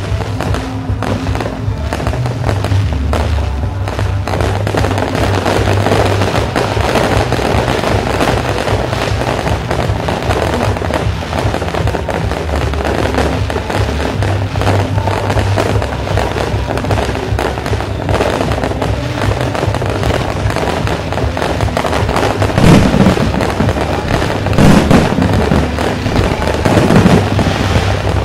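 Fireworks display: a continuous crackle of bursting shells and fountains, with three heavier bangs in the last six seconds.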